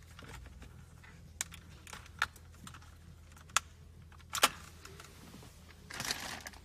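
Plastic wiring-harness connectors on the back of a car's dash trim panel and climate-control unit being worked by hand: four sharp separate clicks about a second apart, the last one loudest, then a brief rustle of plastic trim being handled near the end.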